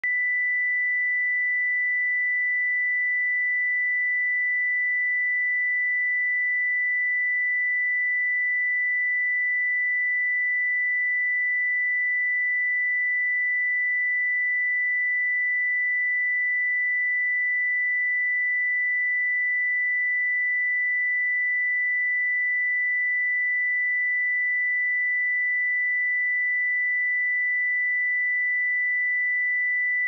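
A pure 1983 Hz sine-wave test tone: one steady high-pitched tone at constant loudness, with no other sound.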